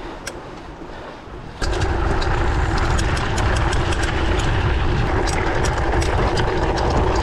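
Mountain bike rattling and rumbling down a rough off-road descent. A quieter rolling noise with a few clicks gives way suddenly, about a second and a half in, to a loud steady rumble full of sharp rattling clicks.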